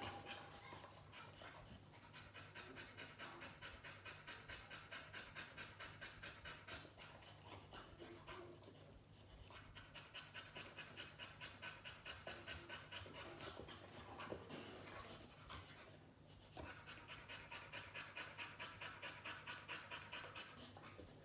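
Boxer dog panting quickly and evenly, about three pants a second, in three runs with two short pauses.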